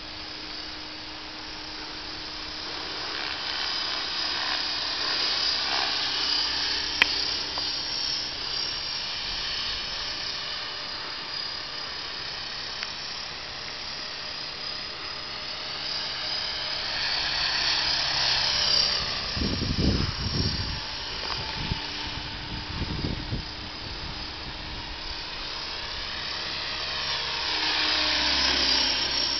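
Blade 550X electric RC helicopter flying aerobatics: a high whine of its motor and rotors that glides up and down in pitch and grows louder and fainter as it swings past. A few low thumps come around twenty seconds in, and there is one sharp click near the seventh second.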